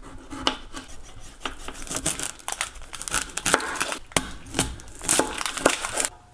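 Kitchen knife slicing red potatoes and an onion on a wooden cutting board: irregular knocks as the blade cuts through onto the board, with crinkling of the dry onion skin.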